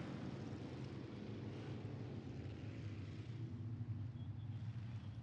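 V8 engines of a pack of dirt-track modified race cars running at low speed under caution, a steady low drone.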